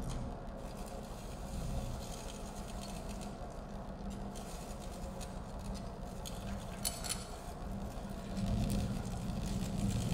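Low, steady electronic drone with faint scrapes, rattles and clicks of small handled objects over it, one sharp click about seven seconds in; the low drone swells louder near the end.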